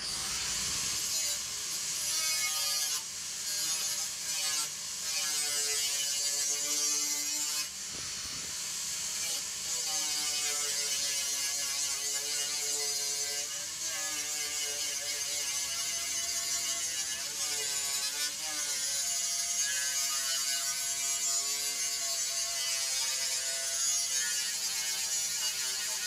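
Handheld electric angle grinder switched on and grinding steel: a steady high hiss of the disc on the metal over the motor's whine. The whine's pitch dips and recovers again and again as the disc is pressed into the work.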